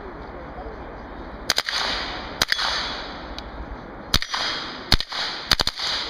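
Closed-bolt submachine gun firing short strings and single shots: a quick pair about a second and a half in, single shots after that, and three fast shots near the end, each with a short ringing tail.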